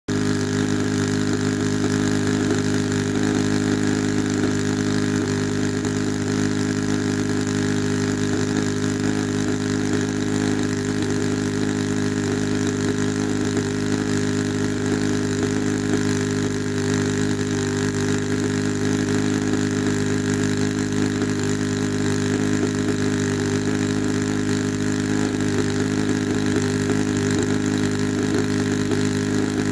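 ASP 91 four-stroke glow engine on a model aeroplane running steadily at an even pitch. This is a new engine on its first run-in tanks of glow fuel, after 18 years unused in its box.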